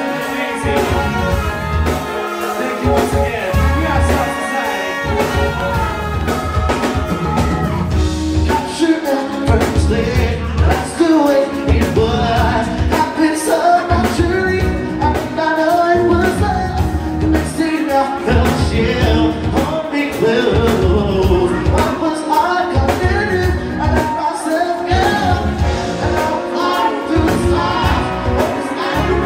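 Live band playing a rock song with a singer, over a steady drum beat.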